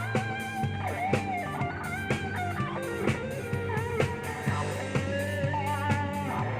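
Live band playing: an electric guitar lead with bent, wavering notes over a steady bass line and drum hits about twice a second.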